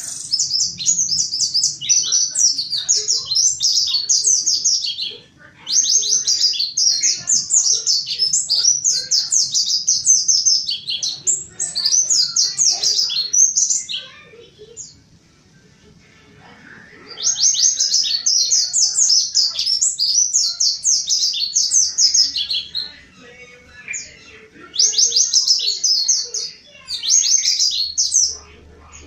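Mountain white-eye singing in long bouts of fast, high twittering notes, with short breaks between bouts.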